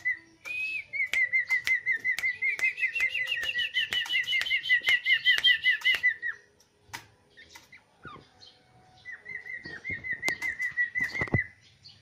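A caged songbird calling in fast runs of short, repeated chirps, each with a sharp click. For a few seconds two strands of notes overlap, one of them climbing in pitch. The calling stops about six seconds in, then starts again briefly near the end.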